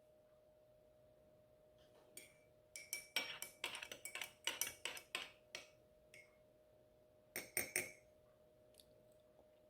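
A drinking glass clinking repeatedly while a cold latte is being made: a quick run of clinks a few seconds in, then three more near the end, over a faint steady hum.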